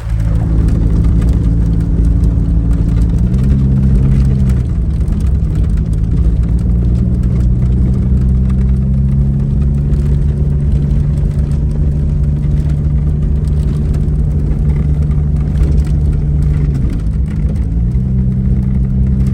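Jeep engine running steadily under way. Its note steps up about three seconds in, dips briefly near the end, then comes back up.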